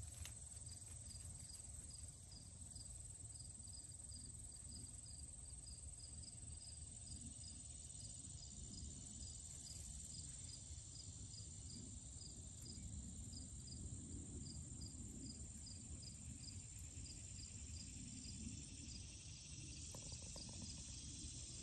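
Faint insect chorus: one insect chirping regularly about twice a second over a continuous high trill, the chirping stopping a few seconds before the end. A low rumble runs underneath.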